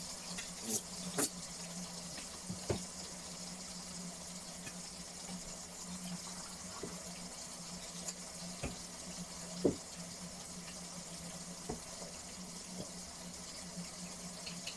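Steady hiss of chicken cooking under a glass lid in a frying pan on an induction hob, over a low steady hum. A handful of light knocks and clinks come through, the loudest a little under ten seconds in.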